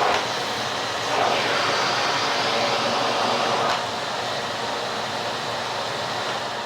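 Vintage Philips P74 canister vacuum cleaner running with a steady rushing noise, louder from about a second in and dropping slightly near four seconds, with a light click at the drop.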